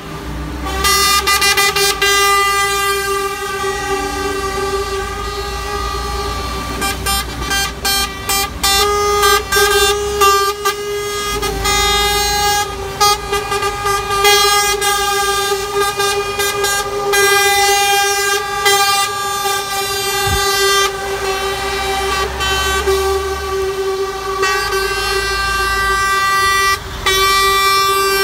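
Truck air horns sounding almost without pause as a convoy of truck tractor units drives past: one steady held note, broken now and then by short stuttering blasts, over the low sound of diesel engines running.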